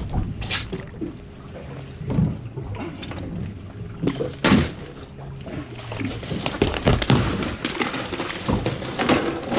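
Dull thunks and knocks of a fish and gear being handled on a fiberglass boat's gunwale and fish box, four or so sharp knocks spread through, with water splashing against the hull near the end.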